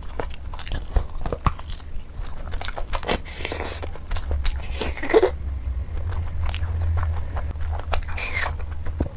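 Close-miked eating of biryani: chewing and biting, with many small sharp clicks, over a steady low hum.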